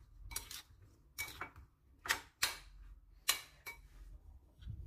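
Metal spoon clinking against a ceramic bowl while tossing straw mushrooms in their seasoning: about ten light, irregular clicks, several in quick pairs.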